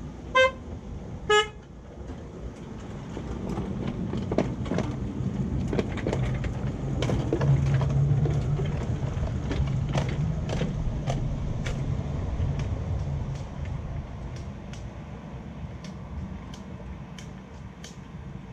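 Two short toots on a battery-electric miniature locomotive's horn, then the 7¼ inch gauge train rumbling and clicking along the track as it approaches, passes close by and fades away.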